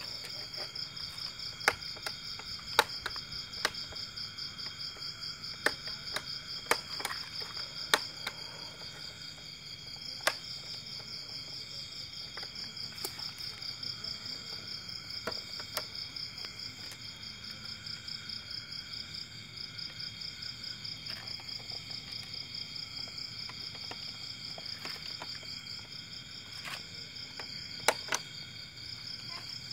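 A steady, high-pitched rapid trill of night insects, with fainter steady insect tones beneath it. A few sharp clicks stand out, several in the first eight seconds and one near the end.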